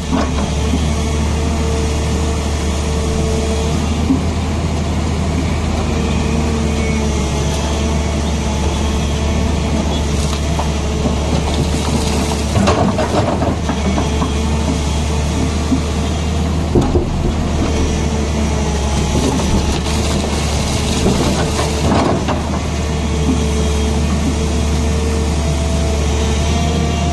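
Tata Hitachi excavator's diesel engine running steadily under work, with a whine that comes and goes and a few sharp knocks, about thirteen, seventeen and twenty-two seconds in.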